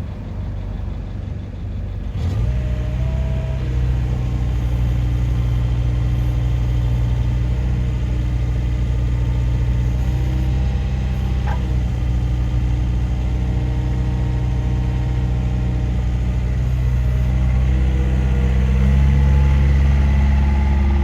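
Takeuchi TB150C midi excavator's diesel engine catching about two seconds in, after a short uneven start, then idling steadily. Near the end it runs a little louder and higher.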